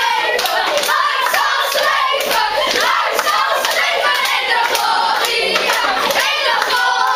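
A group of children singing together and clapping their hands in a steady rhythm.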